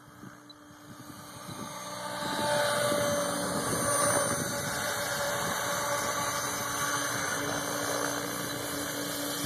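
Radio-controlled model helicopter's rotor and drive growing louder about two seconds in as it comes in close and hovers, then holding a steady whirring hum as it settles with the rotor still spinning.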